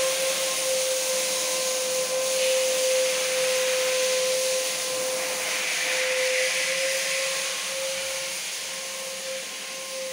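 An electric motor moving air runs steadily: a constant whine over a rushing hiss, easing a little toward the end.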